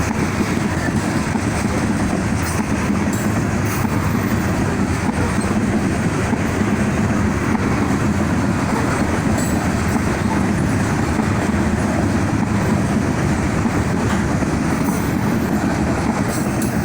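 Train passing close by, its cars rolling over the rails in a loud, steady rumble of wheels on track.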